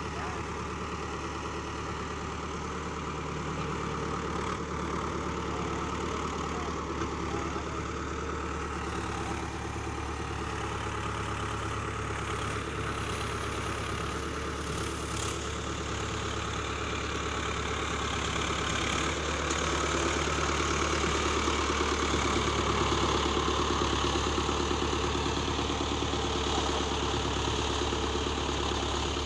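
Iseki 7020A tractor's diesel engine running steadily while pulling a disc harrow, growing a little louder about two-thirds of the way through.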